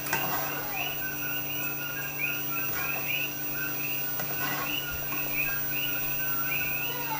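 A small animal calling with short chirps, about three a second, evenly spaced. Now and then a spatula scrapes lightly in a cooking pan.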